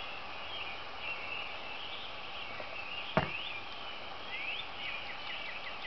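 Pre-dawn chorus of small calling animals: a steady high-pitched chirring with rapid repeated chirps and two rising whistled calls. A single sharp click about three seconds in is the loudest sound.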